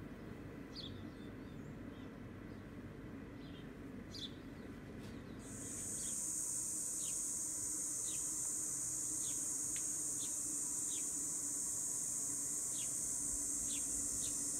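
Small birds chirping in short, repeated downward chirps; about five seconds in, a loud, steady, high-pitched insect drone such as cicadas or bush crickets starts and runs on, louder than the birds.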